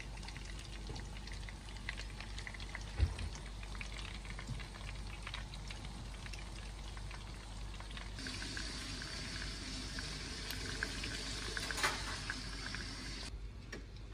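Chicken schnitzels and small potatoes sizzling in oil in frying pans: a steady crackling hiss with scattered pops. There is one sharp knock about three seconds in. The sizzle grows brighter about eight seconds in, then drops off suddenly near the end.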